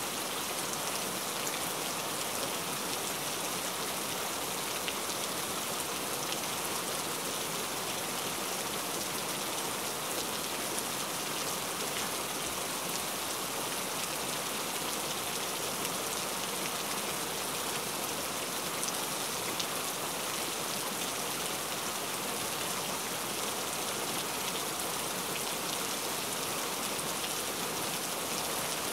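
Steady rain-like hiss, an even wash of noise with faint scattered ticks.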